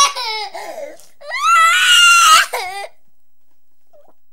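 A 2¼-year-old child crying: a high wail breaks off into sobs, then a second long wail comes a little over a second in and ends in a short falling sob; the crying stops about three seconds in.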